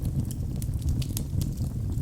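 Wood fire burning in a fireplace: a steady low noise of the flames with several sharp crackles and pops scattered through it.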